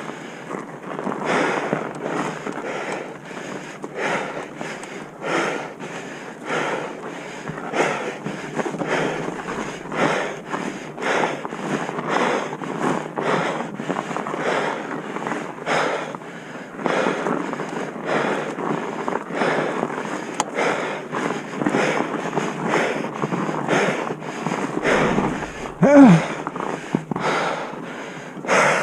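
A person breathing hard in a steady rhythm of about two breaths a second, with a short voiced grunt near the end.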